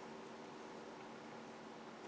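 Faint steady hiss with a low hum: room tone, with no distinct sound standing out.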